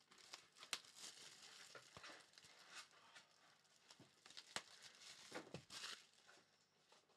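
Faint crinkling of plastic wrap with scattered small crackles and clicks as a trading-card box and its packs are unwrapped and handled.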